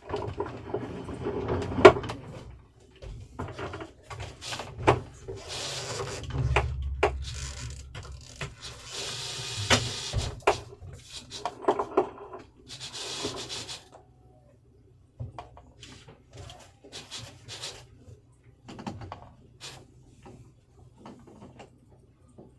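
Knocks, clunks and rubbing from someone moving about and handling wooden fittings in a boat's small cabin, with three rushing, scraping noises near the middle. It goes quieter over the last third, with only a few light knocks.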